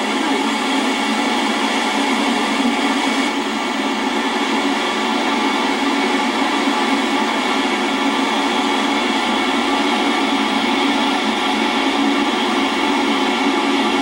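Steady rushing roar of a waterfall, an even noise without breaks and with no deep bass.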